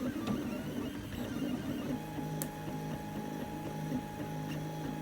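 A 3D printer's stepper motors running mid-print, a steady motor hum whose pitch pattern shifts about two seconds in, with a couple of sharp clicks.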